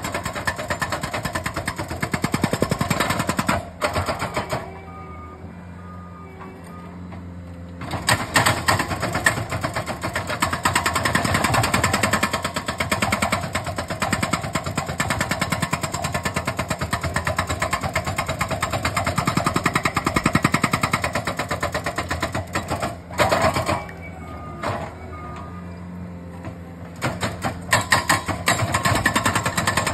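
Hydraulic breaker on a Bobcat compact track loader hammering rock with rapid, continuous blows. It stops twice for a few seconds, about four seconds in and again past the twenty-second mark, leaving the loader's diesel engine running, then starts hammering again.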